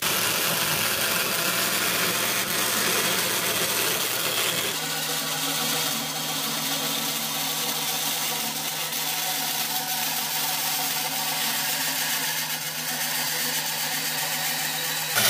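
Old Craftsman wood bandsaw, converted to a slowed, variable-speed motor drive, cutting through a metal plate: the steady hiss of the blade in the metal runs over the motor's hum. About five seconds in, the hum changes and then holds steady, and there is a short loud burst at the very end.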